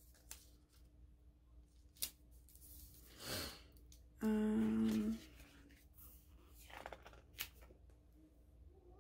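Light rustles and taps of paper sticker sheets being handled. About four seconds in, a woman hums briefly on one steady note for about a second; this is the loudest sound.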